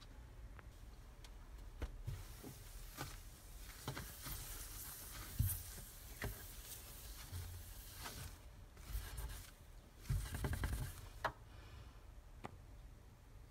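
A cloth wiping and rubbing a wooden drawer, in short rough strokes with scattered light knocks and scrapes.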